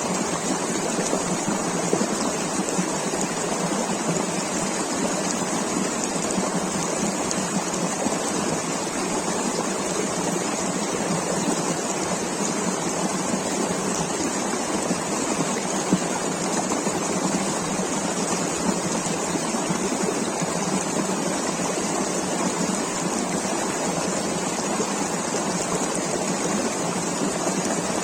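River water rushing and babbling in a steady, unbroken flow.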